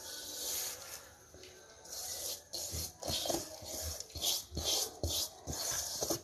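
Grated dry coconut being scraped and tipped out of a non-stick pan into an aluminium pot, a rough rubbing and scraping sound. In the second half it comes as repeated short strokes, about two a second, with light knocks.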